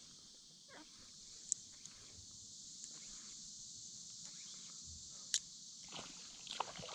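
Steady chorus of evening insects, with a few brief sharp clicks.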